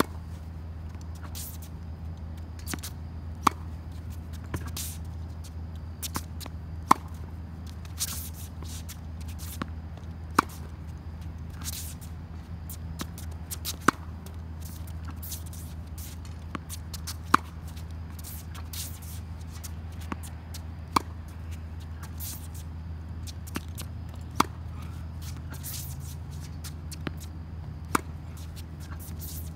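Tennis racket striking the ball on forehand groundstrokes, a sharp pop about every three and a half seconds, eight in all. Softer taps come shortly before most hits, over a steady low hum.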